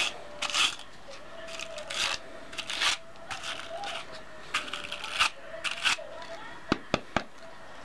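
Two hand carders, wire-toothed wooden paddles, brushing through raw down in repeated scratchy strokes, roughly one or two a second, teasing out the lumps before spinning. A few sharp clicks sound near the end.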